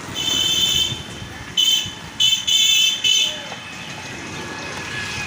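A vehicle horn honking in four high-pitched blasts, a long one, a short one, a long one and a brief toot, over steady road traffic noise.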